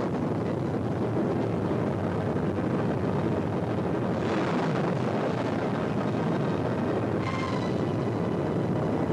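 Film sound effect of a volcanic eruption: a steady deep rumble, with a hissing surge about four seconds in and a few faint steady tones near the end.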